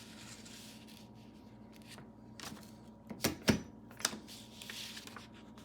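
A vintage stapler being pressed to drive a staple: two sharp clicks close together about three seconds in, then a lighter click, amid soft handling sounds. The staple goes in cleanly.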